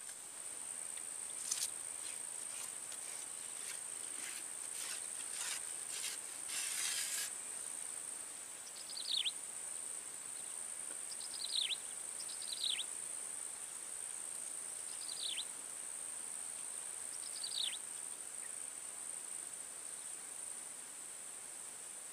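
Swamp ambience: a steady, high-pitched insect drone, with a run of short raspy bursts in the first several seconds. Midway a bird gives five short, downward-sweeping whistled notes a second or two apart.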